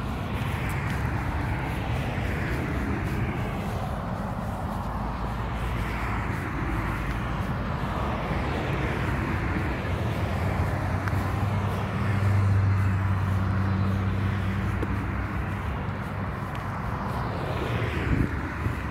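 Street traffic: several cars passing one after another, with a vehicle engine's low hum loudest about two-thirds of the way through.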